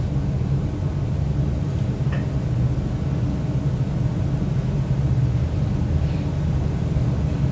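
Steady low hum and rumble of room tone in a large hall during a standing moment of silence, with a faint short sound about two seconds in.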